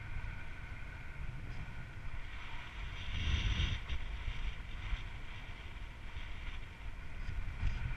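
Wind buffeting an action camera's microphone on an exposed ridge: a steady low rumble with a thin hiss over it, swelling louder for about a second around three seconds in.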